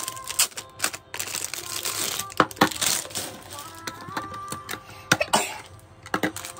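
Clear hard-plastic compartment box being handled and unwrapped from its plastic bag: crinkling of the bag with sharp plastic clicks and knocks, the loudest about two and a half and five seconds in.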